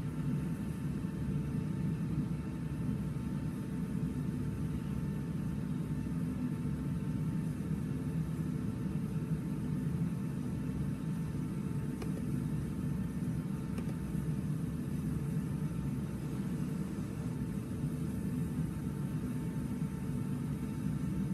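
Steady low rumble and hum with a faint constant whine above it, unchanging throughout, with no music or speech.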